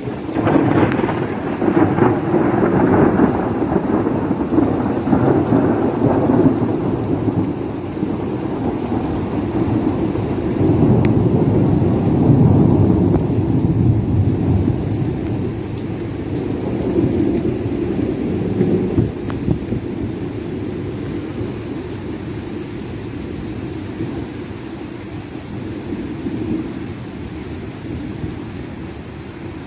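A long roll of thunder breaks right at the start, crackling at first and then rumbling on. It swells again midway and fades slowly toward the end, over steady rain falling on wet pavement.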